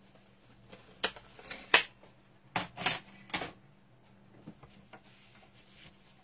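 Cardstock and a scoring board being handled as the scored card is taken off the board: about five short knocks and paper rustles in the first three and a half seconds, the sharpest about a second and three-quarters in.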